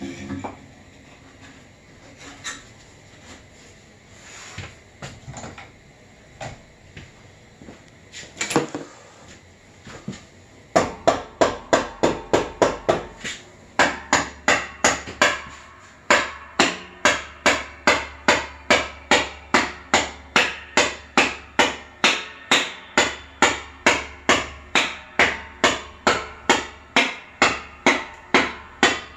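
Hammering: a few scattered knocks, then about eleven seconds in a fast run of sharp blows, about four a second, and after a brief pause steady, even hammer blows at about two a second.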